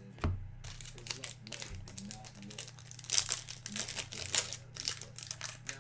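Foil wrapper of a trading card pack being torn open and crinkled by hand, in dense irregular crackles. There is a dull thump just before the crinkling starts.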